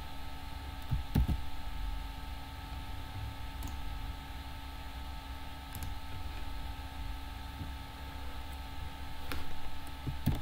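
Steady electrical hum with a few scattered soft clicks and low knocks from a computer keyboard and mouse, one about a second in and two close together near the end.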